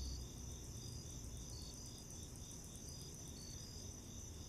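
Crickets chirping in a steady night chorus: a continuous high trill with short chirps repeating over it.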